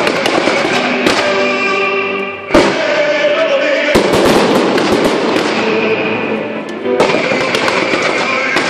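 Aerial fireworks going off: several sharp, loud bangs with dense crackling between them, over music played for the synchronised pyromusical display.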